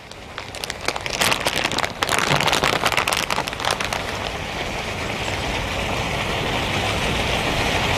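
Tortellini in marinara sauce sizzling and crackling in a hot skillet, a steady hiss that builds slowly. In the first few seconds there is also the crinkle of a plastic bag of shredded cheese being handled.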